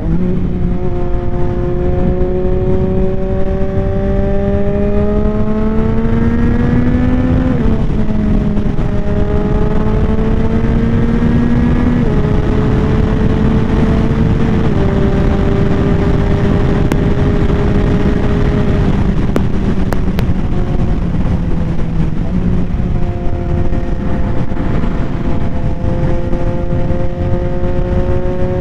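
Yamaha XSR900's inline-three engine through a Kelpi Custom Moto shorty exhaust, pulling up through the gears: the pitch climbs steadily and drops sharply at upshifts about seven and a half, twelve and fifteen seconds in. It then sags off and fades before pulling and climbing again near the end, over a heavy rush of wind on the microphone.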